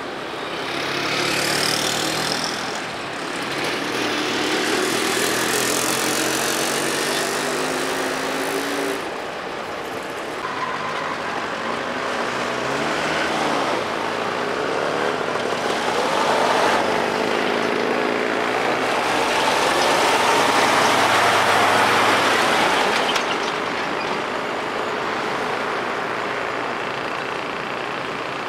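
Old trucks and other traffic driving past one after another, each engine growing louder and fading as it goes by, with engine notes that rise and fall.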